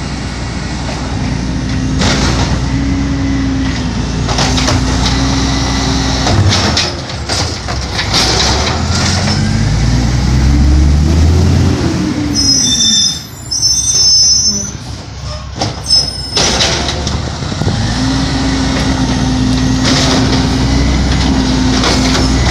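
Automated side-loader garbage truck running, its engine and hydraulics giving a steady whine that returns near the end as the arm lifts a bin. Partway through the engine revs up and back down, followed just after halfway by high-pitched squealing and several knocks.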